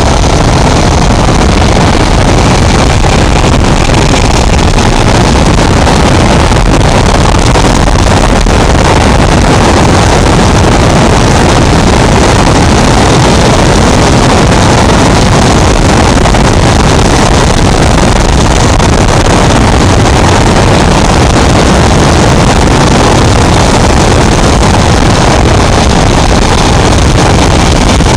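Zipline trolley running at speed along its steel cable, mixed with wind buffeting the microphone: a loud, steady rushing noise.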